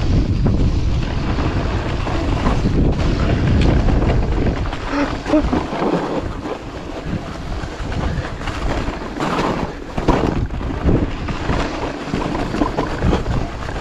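Wind rushing over the camera's microphone as a Haibike AllMtn 6 electric mountain bike descends a rough snowy track at speed, with frequent knocks and rattles from the bike over the uneven ground.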